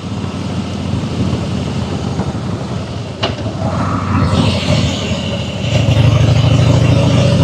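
Harley-Davidson Fat Boy V-twin engine running under way, with wind and road hiss. It picks up about four seconds in and runs louder from about six seconds.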